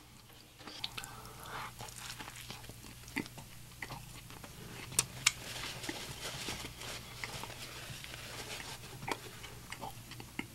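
Close-miked chewing of a smash burger, with wet mouth smacks and many small sharp clicks. Two louder clicks come about halfway through.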